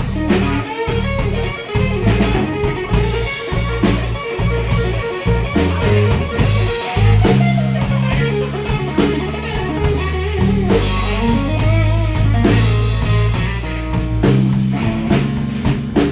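Live band playing a blues number: electric guitar over bass and drum kit.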